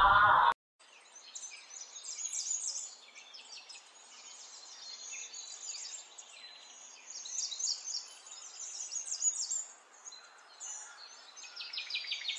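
A loud, wavering pitched call cuts off about half a second in. Then small birds chirp and twitter in many quick, short, high calls, some sweeping down in pitch, over a faint background hiss.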